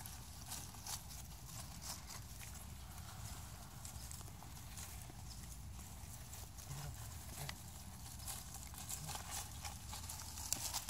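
Dry leaves and pine straw rustling and crackling under the paws of six-week-old Chiweenie puppies as they scamper and play. The sound is faint: scattered light crackles and ticks over a low steady rumble.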